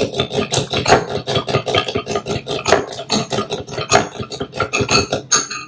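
Fork beating egg in a glass bowl: a fast, even clicking of metal against glass, about six strokes a second, that stops abruptly near the end.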